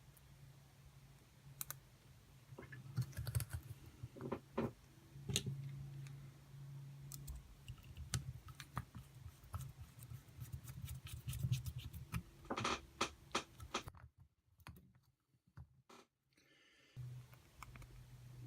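Irregular light clicks and taps of small parts being handled while brushes and springs are fitted into a brushed RC motor, over a low steady hum. The clicks come thickest near the end, then stop abruptly for a few seconds.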